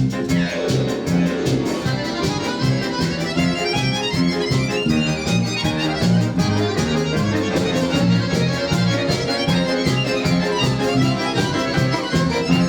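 Accordion playing a fast, lively instrumental piece: quick runs of notes over a steady, evenly pulsing bass.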